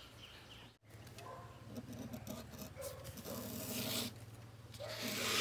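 Ballpoint pen mounted in a drawing compass scraping across cardboard as a circle is drawn: a rough scratching in uneven strokes, loudest near the end.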